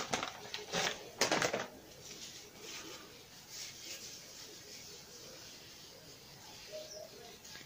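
Crinkly rustling for about the first second and a half as a wet wipe is taken out, then faint, soft rubbing of the damp wipe over the skin of the face.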